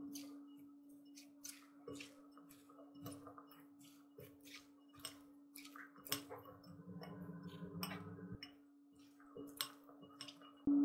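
Silicone spatulas tossing a chopped vegetable and chickpea salad in a glass bowl: irregular light clicks and taps against the glass with the soft rustle of the shredded vegetables. A held musical tone fades away at the start and comes in loud again right at the end.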